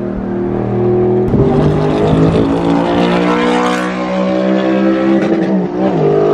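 Audi R8 sports car engine running hard as the car accelerates alongside and pulls ahead. The engine note jumps up sharply about a second in and drops back near the end.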